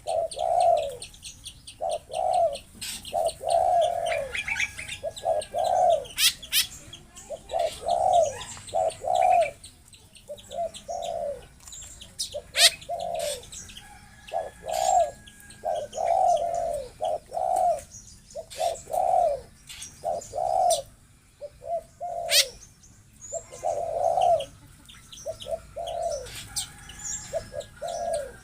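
Coucals (burung bubut) giving deep hooting calls, runs of short repeated notes, with scattered sharp high chirps in between.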